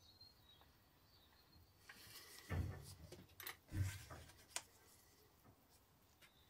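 Faint handling noises from reassembling a wristwatch at the bench: a few light clicks and two dull knocks, about two and a half and four seconds in.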